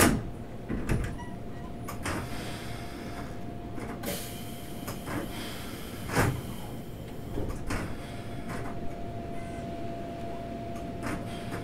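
Keikyu 2000 series train standing at the platform, heard from inside the car: a steady hum under several sharp clunks and a short hiss of air as the passenger sliding doors work. The loudest clunks come at the very start and about six seconds in.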